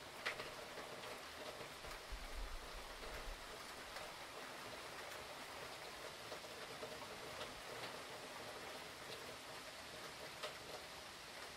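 Steady rain falling in a hurricane, a soft even hiss with scattered single drops tapping close by. A brief low rumble about two seconds in.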